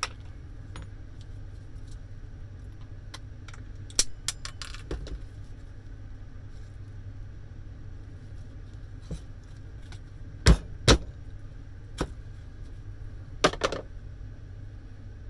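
Loose metal scrap parts from a dismantled garden shredder being handled and put down: scattered clinks and knocks, with two heavy thumps close together a little over two-thirds of the way through, over a steady low hum.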